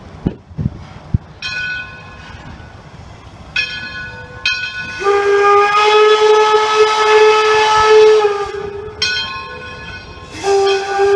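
Steam whistle of 1897 Baldwin locomotive D&LN No. 7, sounding a multi-note chord: a few short toots, then a long loud blast of three to four seconds, another short toot, and a long blast beginning near the end. A few sharp knocks come in the first second.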